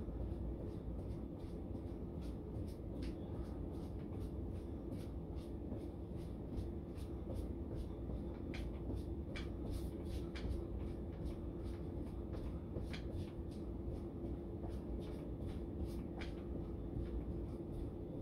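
Steady low room hum with faint, irregular scuffs and taps of a person moving on the spot while exercising.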